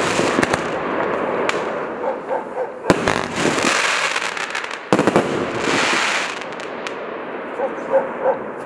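25 mm firework cake firing: sharp reports at the start, a clustered volley about three seconds in and another about five seconds in. Each volley is followed by a second or so of dense crackling from the bursting stars.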